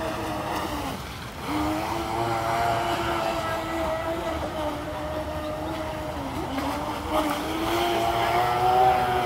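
Radio-controlled speedboat's motor whining as it runs at speed across the water. The pitch dips briefly about a second in and again past the middle, then climbs and grows louder near the end.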